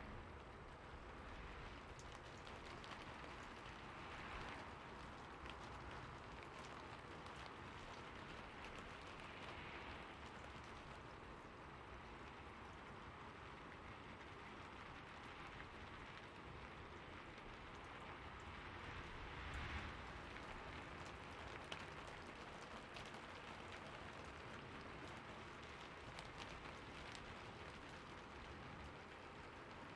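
Steady, fairly soft rainfall: an even hiss of rain with scattered individual drops ticking through it, swelling slightly now and then.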